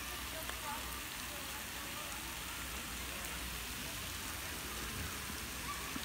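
Steady rain-like hiss of splashing water from a park fountain's jet falling into a pond, with a few faint chirps and distant voices over it.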